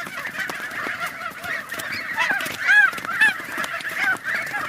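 A group of goslings peeping: a dense chorus of short, arching calls. A few louder calls come near the middle.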